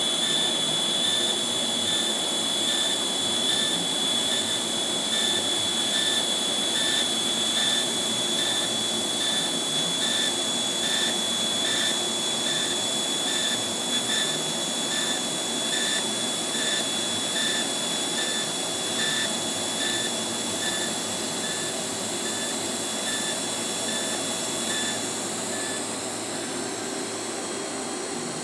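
Pulsed TIG welding arc: a high, thin whine that beats on and off in a steady pulse, over a continuous fan-like hiss. The pulsing stops a couple of seconds before the end, as the arc is broken.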